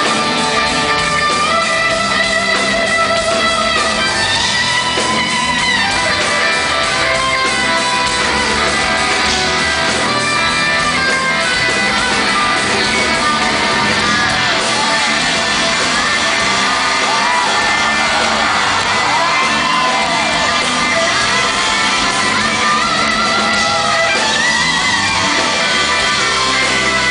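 Live rock band playing in a large concert hall, with electric guitar prominent.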